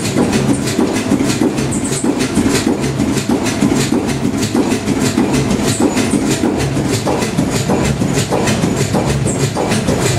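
Kromhout 2H3 marine diesel engine running steadily, with a loud, even, rapid knocking beat.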